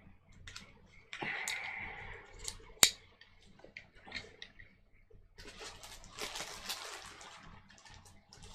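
Handling and cleaning of a field-stripped Glock 23: small clicks of parts and tools, the loudest a single sharp click a little under 3 s in, with two spells of rubbing or scrubbing noise.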